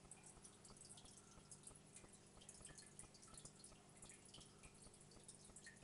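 Faint aquarium water sounds: many small drips and trickles over a steady low hum from the tank's running equipment, such as its filter.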